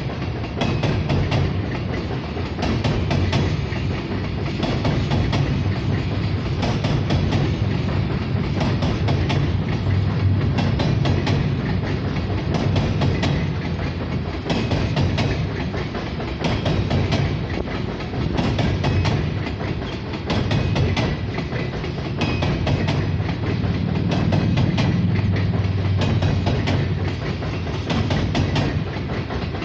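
Loaded coal hopper cars of a long freight train rolling past over a girder bridge: steel wheels clicking over the rail joints in a steady clickety-clack above a continuous rumble that swells and eases as the cars go by.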